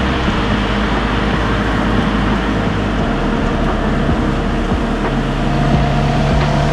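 Audi A4 B9's 2.0 TFSI turbocharged four-cylinder engine running with steady road and tyre noise while driving.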